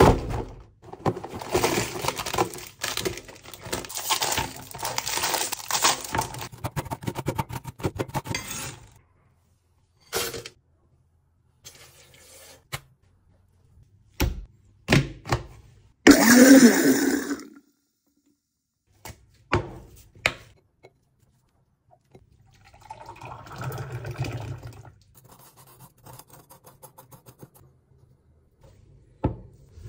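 Kitchen preparation sounds for a milkshake: several seconds of dense crackling and crunching, then scattered clinks and knocks, a short loud burst about 16 seconds in, and a softer rushing stretch a little later.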